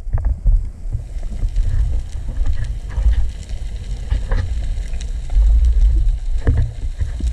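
Underwater recording from a pole-mounted camera: water moving around the camera gives a muffled low rumble that surges and eases, with a few soft knocks scattered through it.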